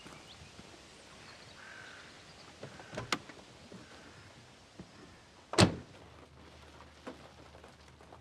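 Camper van side door being worked: a sharp double click of the latch about three seconds in, then a loud thunk of the door a little after halfway, with a few softer knocks around it.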